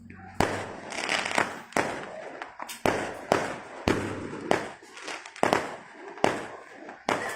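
Fireworks going off: a string of sharp bangs, one or two a second, some followed by a short crackling hiss.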